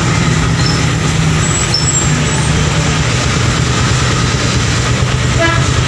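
Rusi Mojo 200 motorcycle engine idling steadily.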